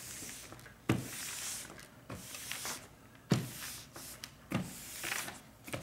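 A household iron pushed across a paper cover sheet in repeated strokes. Each stroke starts with a knock and is followed by a hissing rub of the iron's plate on the paper, about one stroke every second or two.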